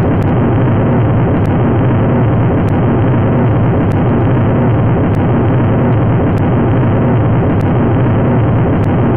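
Steady, loud cockpit background roar of engine and airflow noise, muffled and dull like a cockpit voice recorder tape, heaviest in the low rumble.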